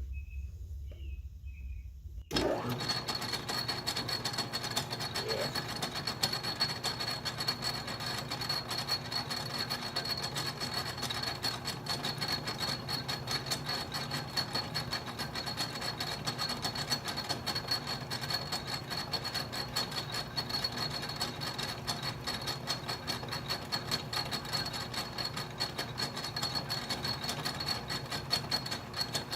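Atlas metal lathe switched on about two seconds in and running steadily, taking a light back pass to clean up the face of a fixture plate, with a constant high whine over the machine noise.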